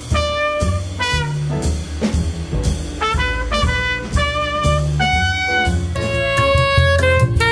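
Jazz band music: a trumpet plays a melodic line over bass and drums, with no singing.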